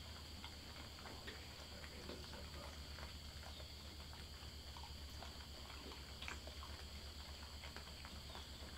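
Faint, scattered little clicks and crunches of a feral hog rooting and chewing feed on bare dirt, over a steady low hum and a faint high steady drone.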